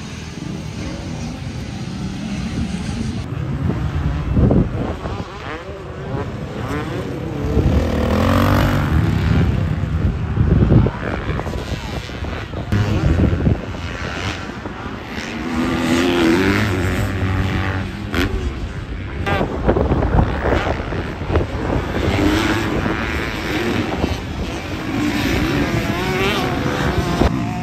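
Motocross bike engines on a dirt track, revving up and dropping off again and again as riders accelerate and ease off.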